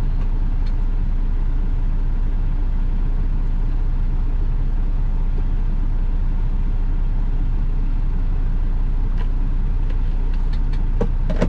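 Semi-truck's diesel engine idling with a steady low hum, heard inside the cab, with a few faint clicks near the end.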